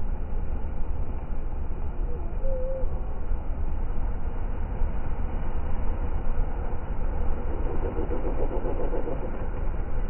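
Steady, muffled low rumble of surf breaking on the rocks and shore, with a brief faint tonal note about two and a half seconds in and a short pulsing sound near the end.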